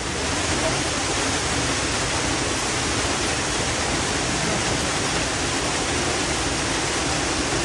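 Steady rush of falling water, an even hiss like a waterfall.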